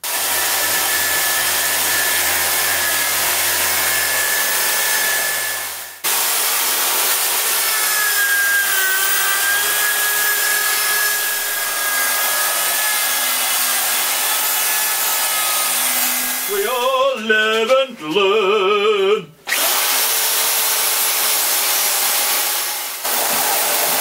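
Electric drill spinning a wire brush wheel against the rusty steel tubes of a bicycle frame and forks, scouring them down to bare metal: a steady whine over a hissing scrape. It comes in several separate stretches that cut off abruptly, and the pitch wavers for a few seconds past the middle.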